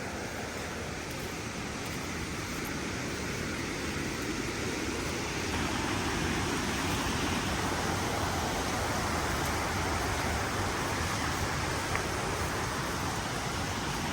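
Steady rushing noise, growing a little louder about five seconds in.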